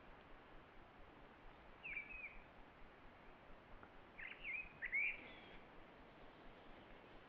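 A few short bird calls over a faint, steady outdoor hiss: one call about two seconds in, then a quick cluster of three or four calls around four to five seconds in, the loudest near five seconds.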